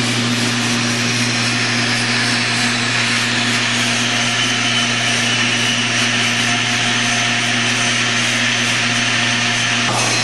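Miniature railway locomotive's engine running steadily with an even, unchanging drone.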